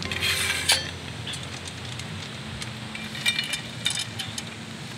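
Small metal clicks and clinks from the clamp knobs on a stainless steel lantern stand pole being worked by hand. They come in two clusters, near the start and about three seconds in, over a steady low hum.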